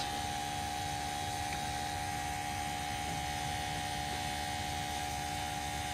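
A 1989 Peerless gas-fired boiler firing: a steady burner rush with a constant hum over it. The flame is burning nicely with a good draft.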